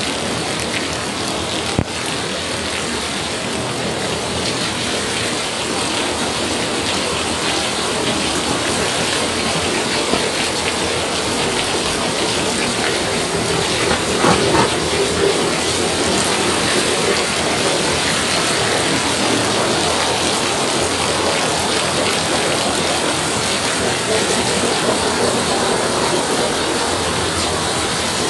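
Heavy rain pouring down steadily, a dense, even hiss of falling water.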